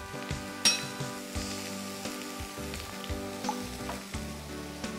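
Broccoli and onion frying in margarine in a skillet, a steady sizzle, with a wire whisk stirring liquid in a glass bowl and a few light knocks of a measuring spoon against the bowl.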